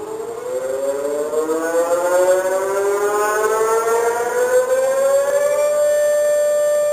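Emergency alarm siren winding up: its pitch rises slowly for about five and a half seconds, then holds a steady tone.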